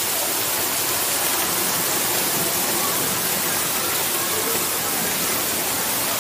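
Steady rain falling on a pool's water surface and the paving around it, an even hiss with no let-up.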